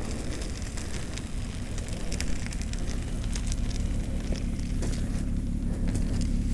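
Studded bicycle tyres rolling over wet, slushy pavement: a steady crackling hiss made of many small irregular ticks, over a low rumble.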